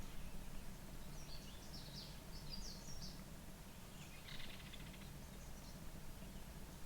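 Birds calling: a run of short high chirps, then a buzzier call about four seconds in, over a steady low background hum.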